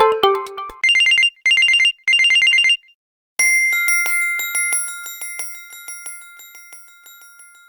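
Samsung Gear S smartwatch ringtones playing one after another. The last notes of a melodic ringtone give way to a ringtone of three short bursts of fast warbling two-pitch beeps. After a brief gap comes a bright chime ringtone with quick tinkling that rings on and slowly fades away.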